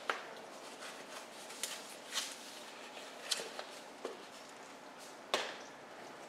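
About six irregular light clicks and knocks over a faint steady hiss, the sharpest right at the start and about five seconds in.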